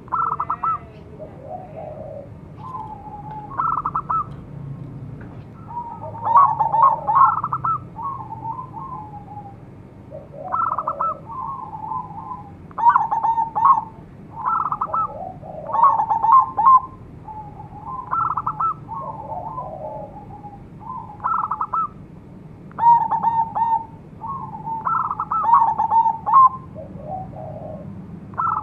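Zebra dove (perkutut) singing: short bursts of quick, trilled coos, about a dozen phrases in a row with brief pauses between.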